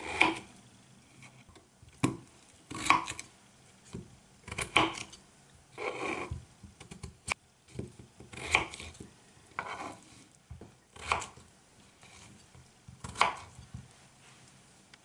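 Kitchen knife cutting peeled raw potatoes into chunks on a wooden cutting board: about a dozen cuts at an uneven pace, each a short slicing sound ending in a knock of the blade on the board, stopping near the end.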